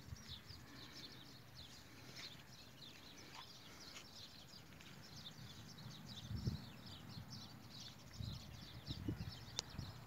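Many small birds chirping together in a dense chorus of short, high, downward-sliding notes. A few low thumps come about six and a half seconds in and again near the end.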